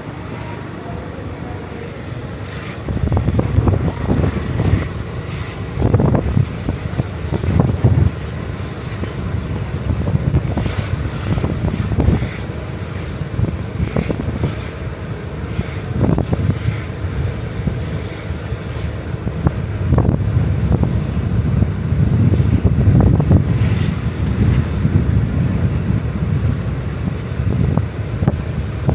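Wind buffeting the microphone in irregular gusts, a low rumble that starts about three seconds in and keeps swelling and dropping.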